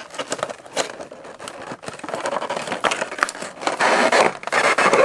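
Packaging crinkling and rustling, with scattered clicks and scrapes, as a boxed bobblehead is handled and unwrapped. It grows louder in the last second or so.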